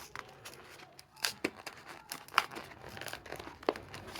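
A Hot Wheels blister-card package being torn open by hand: crinkling plastic and tearing card, with irregular sharp crackles and snaps.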